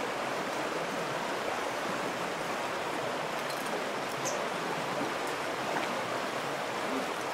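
Steady rushing of a stream: an even, unbroken hiss of running water.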